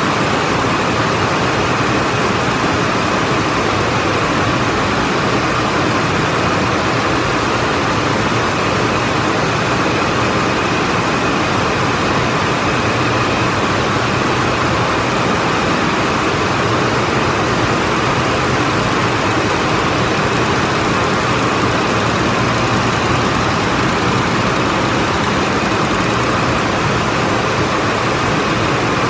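Rows of water jet looms weaving polyester fabric together, making a loud, steady mechanical din in which no single machine's beat stands out.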